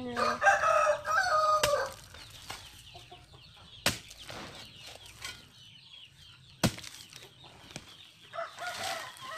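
Chicken calling: a long pitched call over the first two seconds and another starting near the end, with a couple of sharp knocks in between.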